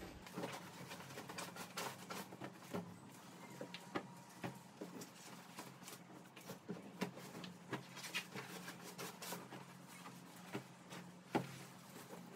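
Bed linen being stripped and handled: faint fabric rustling with scattered light clicks and knocks, over a faint steady hum.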